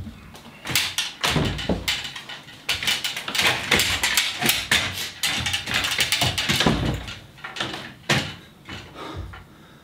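Clatter and knocks of a man climbing down through a roof hatch onto an aluminium stepladder: boots landing on the rungs, the ladder rattling, and his body and clothes brushing against the hatch frame. The knocks come in quick irregular runs, loudest through the middle, and thin out near the end.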